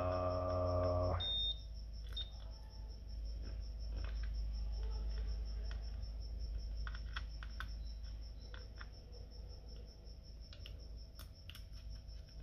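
A digital multimeter gives a short high beep just over a second in and a briefer one near two seconds, as its probes touch a MOSFET's pins on a laptop motherboard. Light clicks and taps of the probes follow. Before the first beep a man hums a held "mmm".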